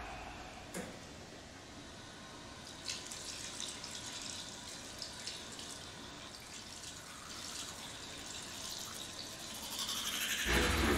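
Water running from a tap into a washroom sink. It starts about three seconds in and runs steadily, with small splashes and drips.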